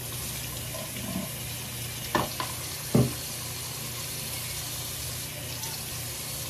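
Water tap running steadily into a sink, shut off abruptly near the end, with two short louder noises about two and three seconds in.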